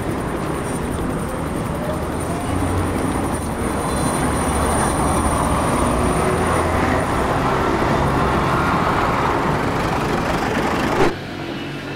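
Loud, steady roar of road traffic, a city ambience laid over aerial footage, swelling slightly midway. It cuts off abruptly with a short hit about a second before the end, leaving a quieter background.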